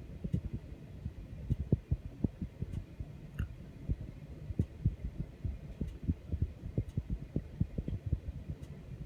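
Trane XB furnace making a rapid, irregular run of low thumps and knocks over a low hum.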